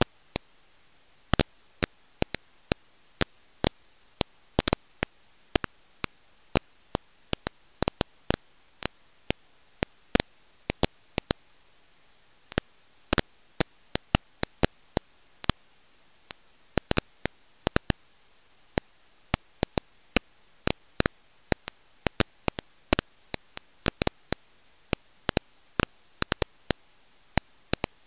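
Sharp, irregular clicks, about two or three a second, over a faint steady hiss.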